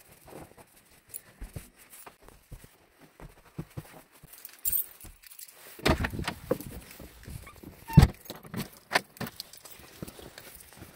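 Keys jangling on a key ring while a person walks. A front door is handled, with a cluster of clicks and knocks from the handle about six seconds in and one loud thump about eight seconds in.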